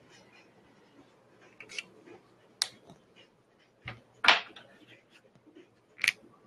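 A handful of sharp clicks and taps from small objects handled on a desk, the loudest a knock about four seconds in.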